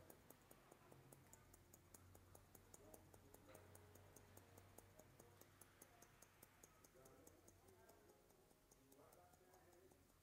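Faint, rapid, even clicking of haircutting scissors, about six snips a second, as they point-cut into a section of hair; the clicking thins out near the end. A low steady hum lies underneath.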